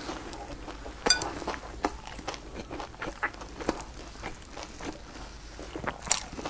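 Close-miked chewing of a mouthful of food, with scattered short mouth clicks and smacks.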